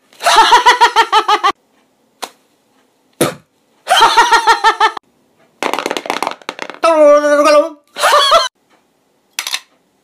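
A man's voice making a quick run of vocal sound-effect imitations of objects, separated by short silences. Pulsing pitched vocal sounds come at the start and again about four seconds in, a hissing stretch about five and a half seconds in, and a held voiced tone just after seven seconds.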